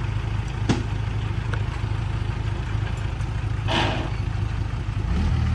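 Heavy diesel engine of a truck or bulldozer running steadily at low revs. There is a sharp click about a second in and a short hiss near the four-second mark. Near the end the engine speeds up and gets louder.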